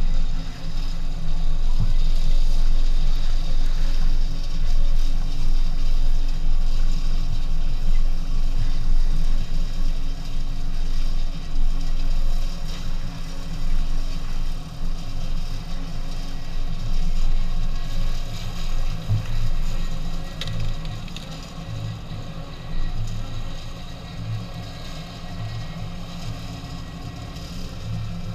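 Low, steady engine and vehicle noise from the camera vehicle creeping along rough ground behind a tractor running a rotary mower. It gets quieter over the last several seconds.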